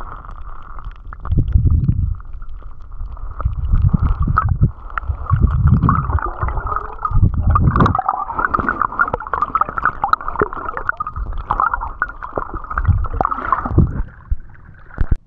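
Water sloshing and gurgling close to the microphone, with irregular low rumbling surges every second or two. It cuts off suddenly just before the end.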